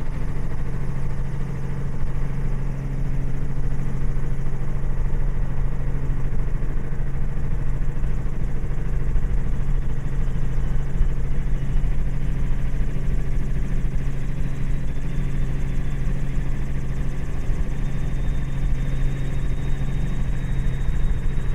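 Robinson R44 helicopter's piston engine and rotors running steadily, heard from inside the cabin as it departs after take-off.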